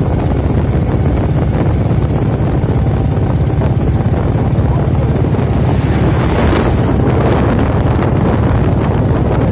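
Steady low rumble of a moving vehicle's engine and road noise, with wind buffeting the microphone. About six to seven seconds in, an oncoming truck passes with a brief rushing whoosh.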